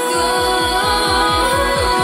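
Background music: a held melody over an electronic beat of low, falling bass notes, about five a second, that comes in at the start.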